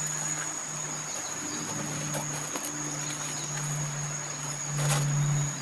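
A forest insect's steady high-pitched trill, one unbroken tone, over a low buzzing hum that breaks off and comes back every second or so. A short knock sounds near the end.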